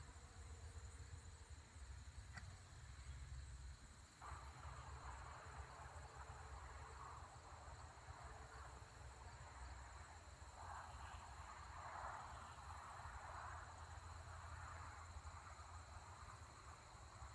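Near silence: a faint, steady cricket trill over a low rumble of wind on the microphone, with a soft rushing that comes and goes from about four seconds in.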